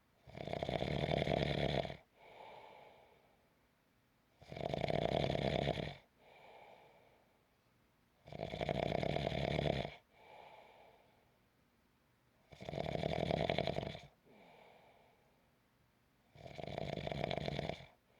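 Snoring in a slow, even rhythm: five long, loud snores about four seconds apart, each followed by a softer, shorter breath.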